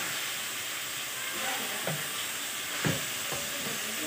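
Chicken pieces sizzling in oil in a frying pan while a wooden spatula stirs them, with a few knocks and scrapes of the spatula against the pan, the loudest a little under three seconds in.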